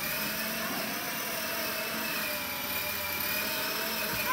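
Electric motor and gearbox of a children's battery-powered ride-on toy motorbike whining steadily as it drives along with two children aboard.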